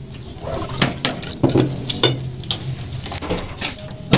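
Clatter of tableware and utensils: several short, sharp clinks and knocks at irregular intervals, over a steady low hum.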